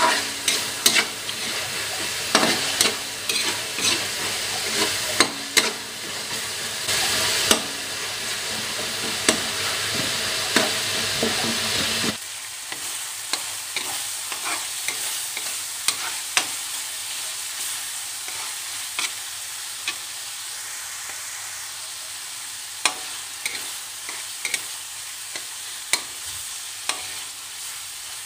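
Tuna and tomatoes frying in oil in a metal wok: a steady sizzle, with a metal spoon scraping and clicking against the pan as it is stirred. About twelve seconds in the sizzle abruptly becomes quieter and thinner, with only occasional clicks.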